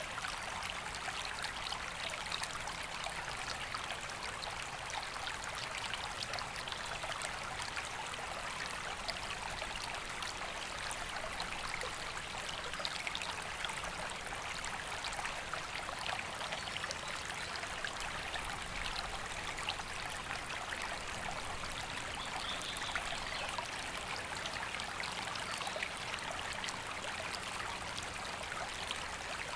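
A river flowing steadily: an even, continuous rush of running water.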